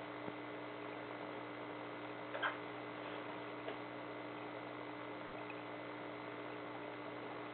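Quiet room tone with a steady electrical hum, heard through a Ring indoor security camera's microphone, with a few faint clicks, the clearest about two and a half seconds in.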